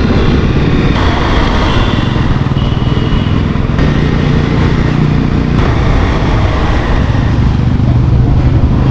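Motorcycle engine running steadily while riding, with a constant rush of wind and road noise over it.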